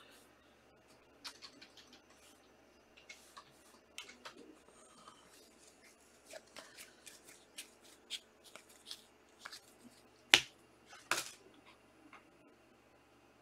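Trading cards and their packs being handled: scattered light clicks and rustles, with one sharp snap about ten seconds in and a short cluster of clicks a second later.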